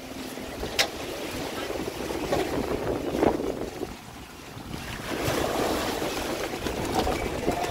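Wind buffeting the microphone over a steady outdoor rumble, with faint voices in the background.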